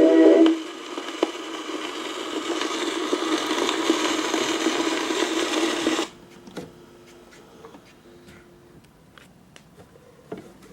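A military band's recording on an early-20th-century shellac 78 rpm record ends just after the start. The needle then runs on with a steady hiss of surface noise, which cuts off suddenly about six seconds in, leaving a few faint clicks and knocks.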